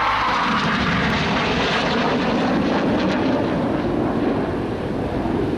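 Fixed-wing aircraft flying, its engine noise a steady, loud drone.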